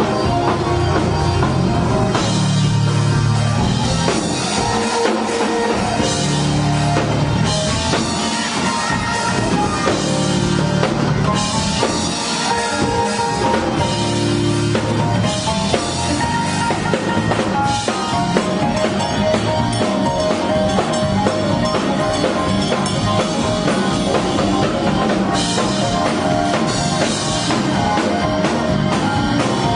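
Live gospel praise-break music: a drum kit playing a driving groove under keyboards and guitar.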